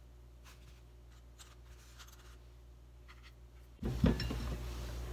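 Faint rustling of a paper towel being folded and light clicks as toothpicked strawberries are handled on a ceramic plate. Near the end a low steady background noise comes in abruptly, with a small knock as a strawberry is set down on the plate.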